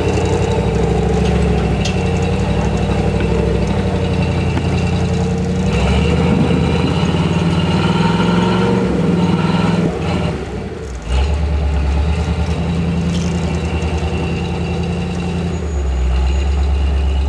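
Rock-crawler buggy's engine revving hard as it climbs rocky ledges, its wheels spinning and throwing dust. The revs rise about six seconds in, drop away for about a second around ten seconds in, then pick up again.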